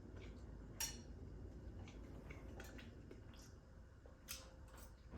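Faint, scattered clinks of cutlery against a plate during a meal, about half a dozen light taps with the loudest a little past four seconds in.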